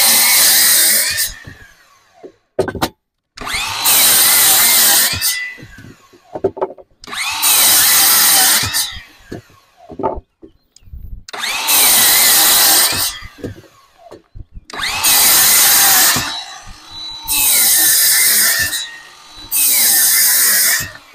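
DeWalt DCS361 20V cordless 7-1/4-inch miter saw cutting through 2x6 lumber, seven short runs of a second or two each, the blade spinning up, biting through the wood and winding down between cuts. It cuts through easily on a fully charged 6 Ah battery.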